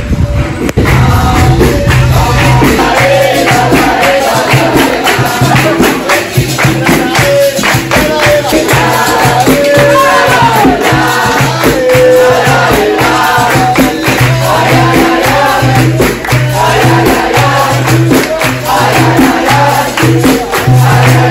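Live capoeira roda music: a group singing to hand clapping, pandeiro tambourines and berimbaus, in a steady rhythm.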